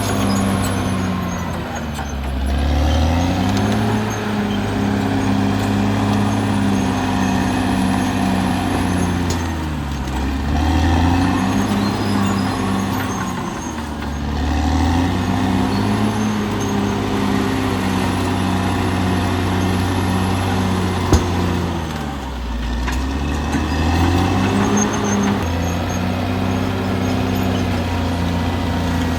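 Caterpillar D6R XL bulldozer's diesel engine running under work. Its pitch drops and recovers four times, as it bogs under load and picks back up. There is a single sharp knock late on.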